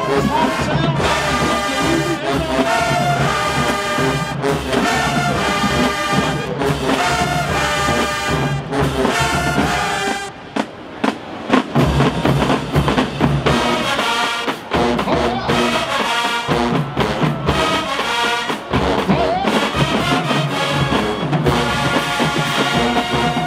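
Marching band brass section, trombones and trumpets, playing over marching drums. About ten seconds in the band drops back for a moment, with a few sharp drum hits, then the full band comes back in.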